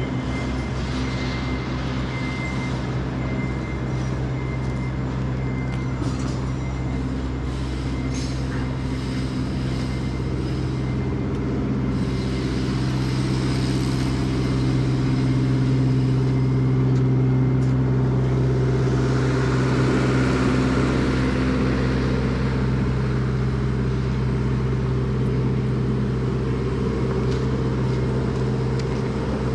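City street traffic, with a steady low engine hum from a nearby vehicle that grows louder around the middle and a rush of passing-vehicle noise about twenty seconds in.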